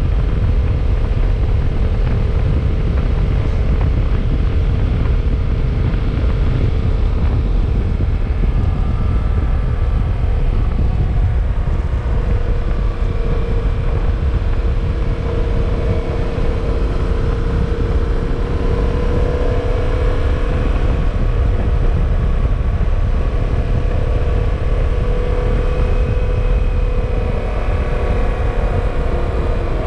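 Motorcycle engine running at a steady cruising pitch while riding, under a heavy, constant rumble of wind on the microphone.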